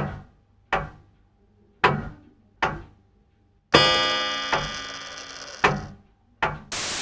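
Sharp knocks, four in the first three seconds. Just past halfway a ringing, chime-like chord starts and fades over about two seconds, with a few more knocks after it. A burst of radio static comes in near the end.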